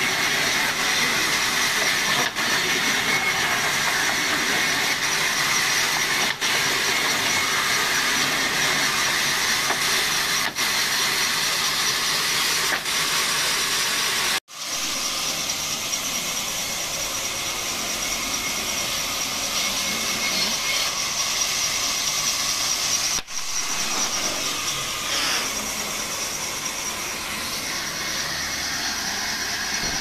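Large sawmill band saw running and cutting lengthwise through fresh timber: a steady, loud, hissing whir of the blade in the wood. It breaks off abruptly about halfway through and briefly again about three-quarters through.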